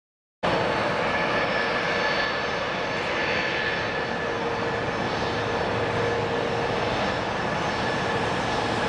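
Boeing 737 jet engines running at low taxi thrust: a steady whine, with thin held tones over a broad rumble. It cuts in after a brief silence at the very start and holds even, with no spool-up.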